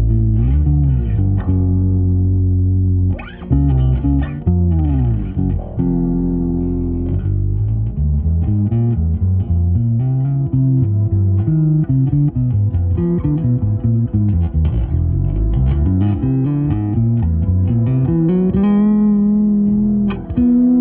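Fender Japan Boxer Series Precision bass played solo in a fast melodic line of low notes, with several notes gliding up and down in pitch.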